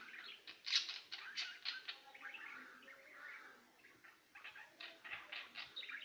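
Caged finch chirping: short, high calls in quick runs, easing off around the middle and picking up again near the end.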